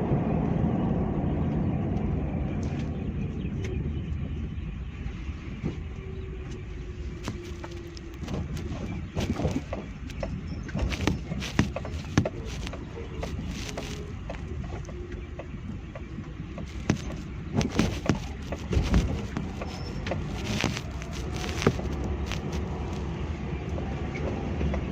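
Road traffic noise: a vehicle rumble that fades away over the first several seconds, then a steady background of traffic. In the second half there are scattered sharp clicks and knocks.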